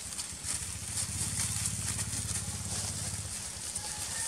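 A low, steady engine hum with an even pulse, with faint rustling of dry leaves as young macaques scuffle on the ground.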